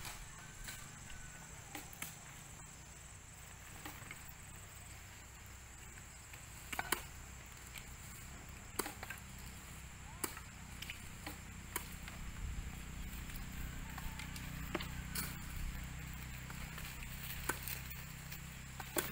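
Sugarcane stalks being chopped by hand with a blade into short planting pieces (patdan): sharp, irregular strikes about every one to two seconds, the loudest about seven seconds in.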